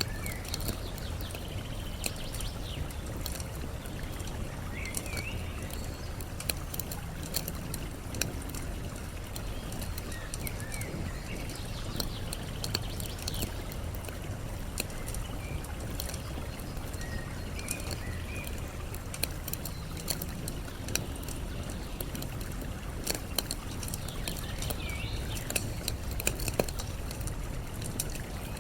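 Campfire crackling with scattered sharp pops, over the steady rush of flowing water, while small birds chirp briefly every few seconds.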